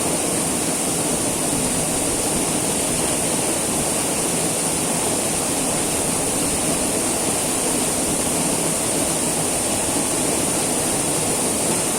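Waterfall: steady rushing of falling water, with no breaks.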